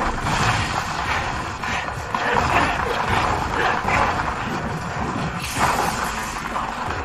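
Anime fight-scene audio: a dense mix of crashing and impact sound effects over background music, with a louder crash about five and a half seconds in.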